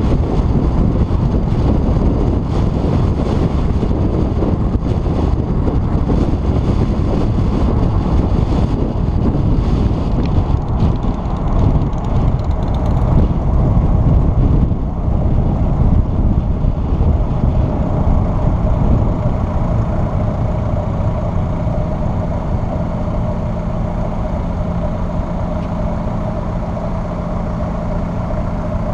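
Wind and road noise buffeting a camera on a car's hood as the car drives along, easing off as it slows into stopped traffic. About halfway through, a steady engine hum comes through under the noise.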